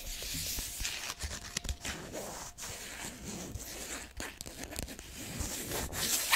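Crisp crinkling and tearing-like handling noise full of tiny crackles, swelling near the end and stopping on a sharp click.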